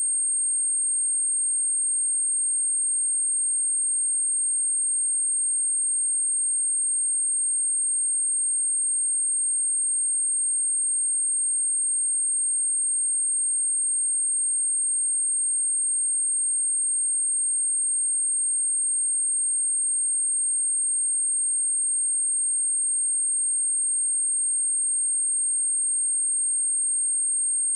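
A pure 8571 Hz sine-wave test tone, one steady high-pitched whistle held at constant pitch and level, of the kind played through a speaker to test it or to clear water and dust from it.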